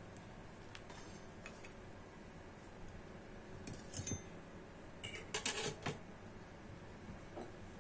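Metal spatula and fork clinking and scraping as a cooked waffle is lifted out of an electric waffle maker. There are a few light clicks, then a brief cluster of clinks about five and a half seconds in.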